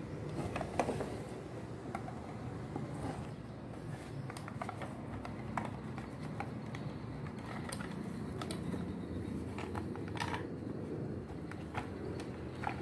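Scattered faint clicks and small knocks of a Philips hand mixer's plastic housing being handled and pried apart at its seam, over a low steady room hum.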